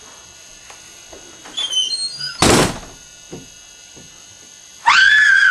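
A single sharp bang about two and a half seconds in. Near the end, a loud high-pitched scream sets in and holds on one pitch.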